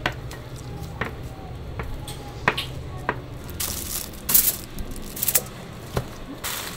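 Metal bench scraper chopping through bread dough and knocking on the counter in sharp taps about once a second, with plastic sheeting rustling in short bursts in the second half.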